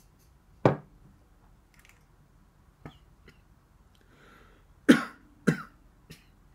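A man coughing while tasting a glass of barley tea mixed with milk: one sharp cough just under a second in, then two more in quick succession about five seconds in.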